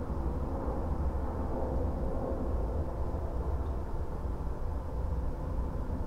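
Steady low rumble of outdoor background noise, with no distinct events.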